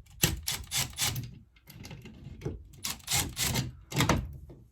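Handling noise: a string of irregular clicks and knocks as a cordless impact driver is picked up and set against the screws of an Ethernet wall plate, without the driver running yet.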